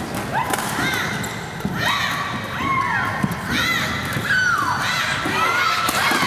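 Badminton rally: court shoes squeaking again and again on the court mat as the players lunge and change direction, with thuds of footfalls and the sharp crack of racket strikes on the shuttlecock.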